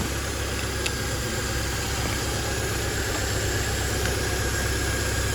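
2003 Chevy Cavalier's four-cylinder engine idling steadily.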